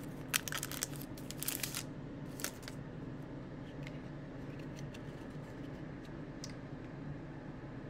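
Foil wrapper of a Topps Chrome Platinum Anniversary baseball-card pack crinkling as it is peeled open, dense for about the first two seconds. After that come a few scattered clicks of the chrome cards being slid out and handled, over a faint steady hum.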